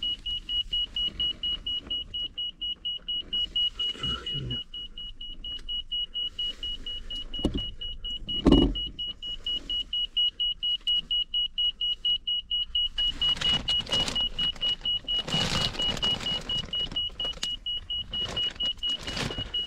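Handheld electromagnetic-field meter beeping rapidly and steadily in a high pitch, its alarm sounding while it reads high field values. A single knock about eight seconds in and a stretch of rustling in the later part.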